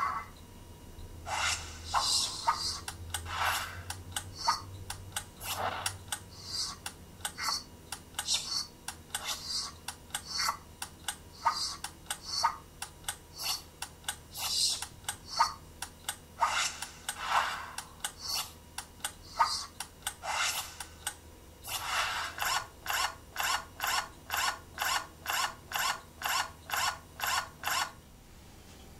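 Repeated short rasping, scraping strokes, irregular at first and then evenly spaced at about two a second for the last few seconds before stopping. They are sound effects for façade panels and profiles being slid and fastened into place.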